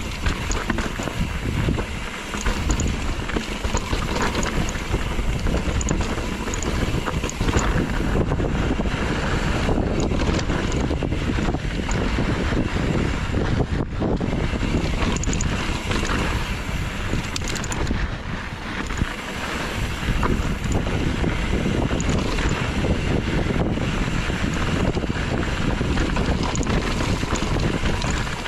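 Steady, heavy wind noise buffeting the microphone of a camera riding along on a moving mountain bike, with low rumble from the ride.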